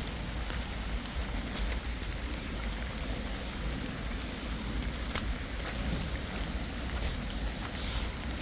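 Steady rain falling, an even hiss with a few scattered sharp ticks of drops, over a constant low rumble.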